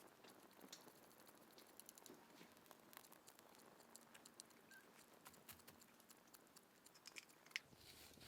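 Faint campfire crackling: scattered small pops and ticks of burning wood, with a somewhat sharper pop near the end.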